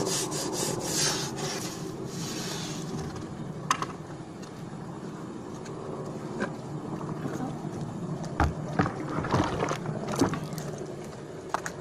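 Long-handled brush scrubbing a wet concrete roof in quick back-and-forth strokes that stop about two seconds in. Later come a few scattered knocks and scrapes as muck is cleared by hand.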